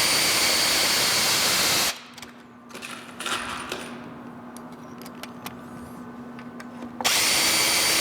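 Power drill driving pocket screws into the apron-to-leg joint. It runs at steady speed for about two seconds and stops, with a few light clicks during the pause. It runs again near the end for the next screw.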